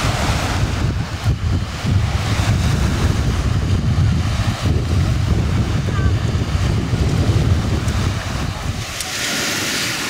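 Sea surf with wind buffeting the microphone in a heavy low rumble. About a second before the end the rumble drops away, leaving the hiss of small waves washing over a pebble beach.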